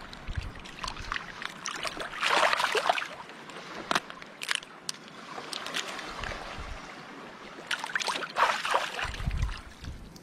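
Shallow seawater sloshing and splashing as a cooked mud crab is pulled apart and rinsed by hand, with irregular sharp clicks and cracks of the shell. Two louder splashes come about two seconds in and again near the end.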